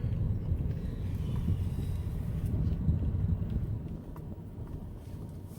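Low, steady rumble of a car, easing off and getting quieter near the end.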